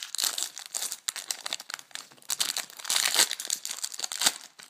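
Foil trading-card pack being torn open and its wrapper crinkled in a run of crackling rustles, densest about three seconds in, with a sharp click near the end.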